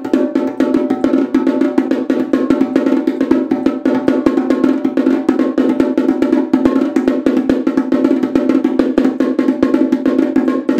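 Homemade repinique drum, a tin paint can with a PET bottle plastic head, played with a wooden drumstick and the bare hand in a fast, continuous stream of strokes. Each stroke rings with a steady pitched tone.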